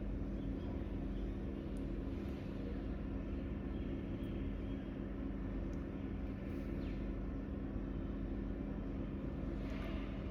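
Steady low mechanical hum with a few constant low tones, unchanging throughout.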